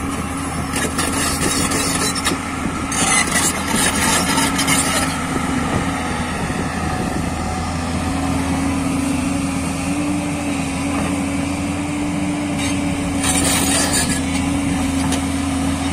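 Diesel engine of a JCB tracked excavator running steadily while the machine swings its upper body and boom around. The engine hum rises slightly in pitch about eight seconds in. Brief hissing bursts come about a second in, again from about three to five seconds, and near the end.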